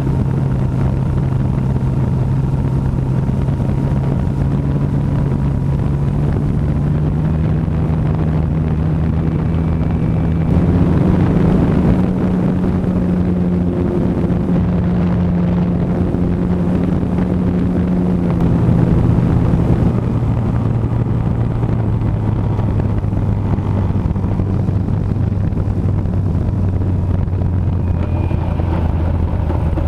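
Radio-controlled Sopwith Camel model's engine and propeller running steadily in flight. The pitch climbs about eight to eleven seconds in as the throttle opens, then drops to a lower drone near twenty seconds as it throttles back to come in for landing.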